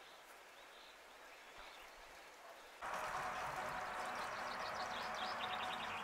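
Outdoor birdsong: faint chirps at first, then a sudden jump to a louder background hiss about halfway through, with birds singing over it, including a short, fast trill of repeated notes near the end.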